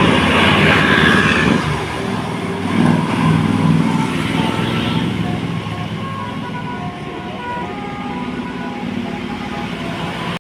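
Tour bus engine running as it passes, loudest in the first few seconds and then easing off, with a cut near the end.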